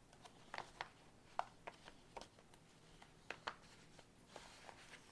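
Faint, irregular small clicks and taps of paper pages and paper clips being handled while a journal signature is put together.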